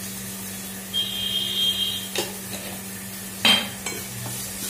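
Spatula stirring frying eggplant slices in a nonstick pan: a high squeaky scrape for about a second, then two knocks of the spatula against the pan, the second, about three and a half seconds in, the loudest.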